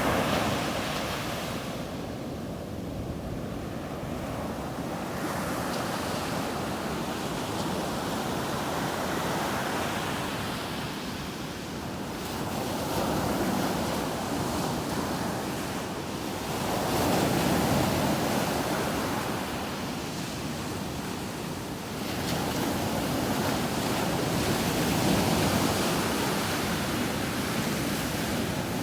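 Sea waves breaking on a beach, the surf swelling and easing every few seconds, with a sudden louder break about 22 seconds in, and some wind on the microphone.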